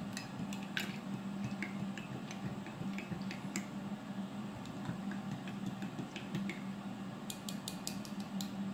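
Plastic spoon stirring soapy water in a ceramic mug, with light, irregular clicks as it knocks against the inside of the mug and a quicker run of clicks near the end.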